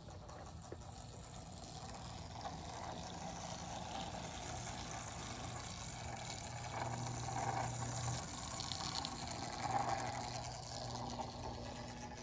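1997 Lionel Santa Fe Warbonnet O-27 toy train running around its track: the electric motor whirs and the wheels rumble on the tubular steel rails, with a steady low hum underneath. The sound swells louder twice in the second half as the train passes close.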